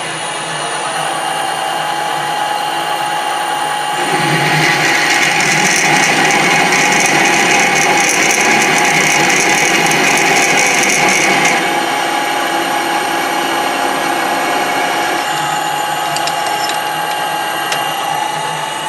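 A machine tool running steadily while a twist drill bores into a metal workpiece, the bit testing whether it still cuts well. The cutting noise is loudest from about four to eleven seconds in, then eases off, with the machine's steady hum underneath throughout.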